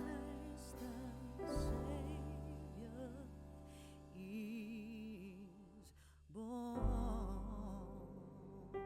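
Soft background music: a slow melody with wavering vibrato over held low notes, laid in place of the original sound.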